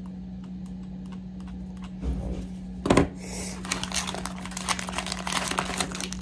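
Packaging being handled and unwrapped: a few faint clicks, a thump and a sharp knock about three seconds in, then plastic packaging crinkling and rustling with many small clicks.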